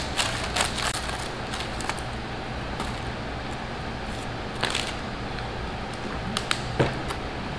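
Steady background hum with scattered light clicks and rustles from a man eating with his hands and picking up a plastic water bottle to drink.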